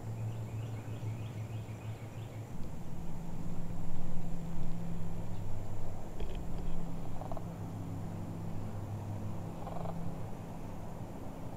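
Low steady hum of a distant motor, its pitch stepping up about two and a half seconds in, with a short quick run of high chirps near the start.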